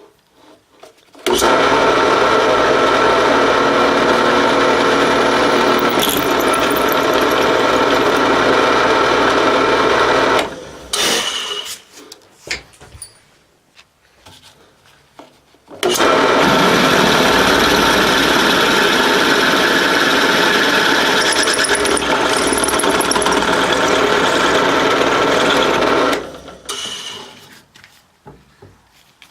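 Drill press motor and spindle running in two stretches of about nine and ten seconds, each switched on sharply and spinning down at the end, while spotting and drilling mounting-bolt holes in a cast iron part.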